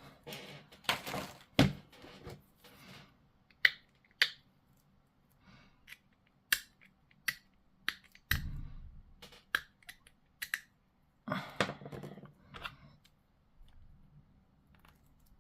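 Plastic model-kit parts being handled and fitted together: scattered sharp clicks of plastic on plastic and brief scraping rustles.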